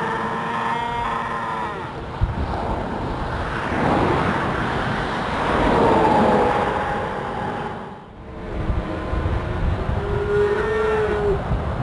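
Stranded calves bawling in three long calls that bend in pitch, over a steady rushing noise.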